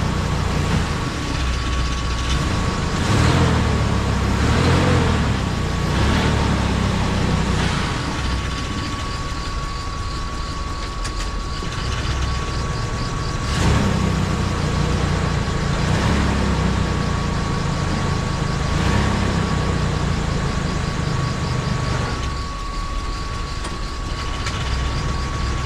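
1989 GMC Sierra pickup's engine idling with the transmission in drive while the gears are tested. The engine note swells a few times, and a steady high whine runs over it.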